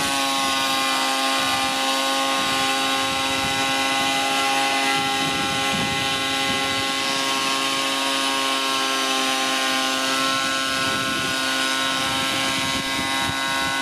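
Parkside PADM 1250 planer-thicknesser running as a jointer, its cutterblock planing the edge of an oak board at 0.5 mm depth. The motor whines steadily under the rough hiss of the cut, its pitch dipping slightly as the board goes onto the knives near the start.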